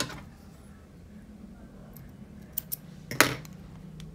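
Light metallic clicks and clinks from hands working a metal crochet hook, with rings on the fingers: a sharp click at the start, two faint ticks about two and a half seconds in, and a louder clink a little after three seconds. A faint steady low hum runs underneath.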